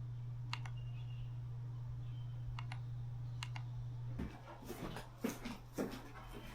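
Typing on a computer keyboard: a few separate key clicks, then a quicker run of keystrokes in the second half. A low steady hum underneath stops about four seconds in.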